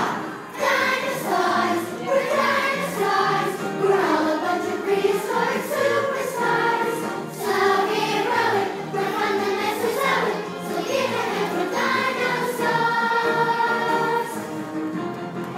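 A children's choir singing a song with musical accompaniment.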